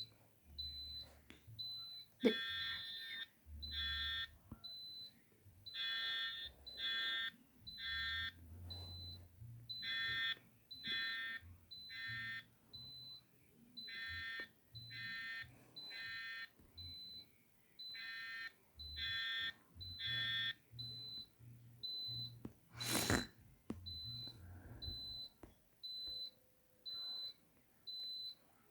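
Fire alarm horns sounding the temporal-3 evacuation pattern, three short blasts then a pause, over and over, stopping about 20 seconds in. A short high-pitched beep repeats about every 0.7 seconds throughout, and there is a single sharp click a couple of seconds after the horns stop.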